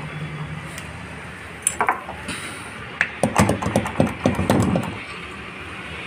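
Metal parts of a washing machine gearbox (clutch assembly) clicking and rattling against the steel base plate as it is handled and seated: a couple of sharp clicks a little under two seconds in, then a quick run of rattling clicks for about two seconds.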